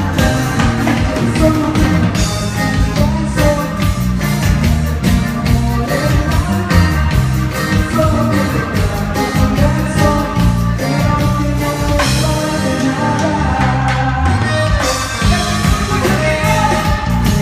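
A band playing music with a heavy bass line, a steady drum beat and a singing voice.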